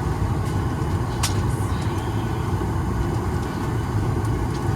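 Steady low rumble of the ventilation and aircraft systems inside a Boeing 737 MAX 9's cabin, parked at the gate while boarding, with a sharp click a little over a second in and a few faint ticks near the end.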